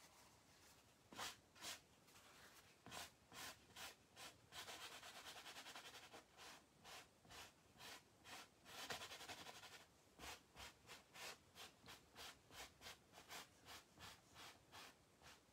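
Faint paintbrush strokes scrubbing across stretched canvas: a few separate strokes, two longer stretches of rubbing, then quick short strokes about two a second in the last few seconds.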